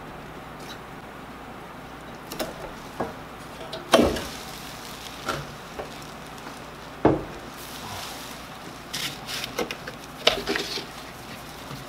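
Handling noises as a sanding belt is worked on an expandable rubber drum of a stopped lapidary polishing machine: two sharp knocks, about four and seven seconds in, and crinkly rustling of a plastic poncho near the end.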